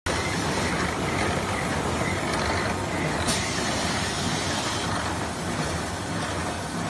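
Automatic toilet paper roll cutting and packing machine running: a steady mechanical noise of conveyors and motors, with a short hiss about three seconds in.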